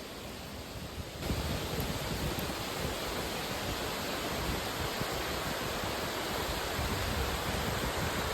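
Steady rushing of flowing water, stepping up in level about a second in.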